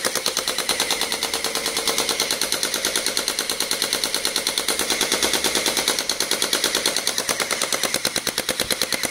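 Electric toy gel-ball blaster firing on full auto: a rapid, even clatter of roughly ten shots a second that runs on without a break.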